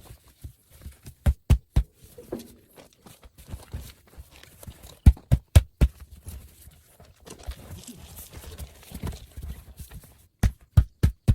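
Heavy knocks struck in quick runs of three or four, the runs a few seconds apart, during work on a large dumper tire.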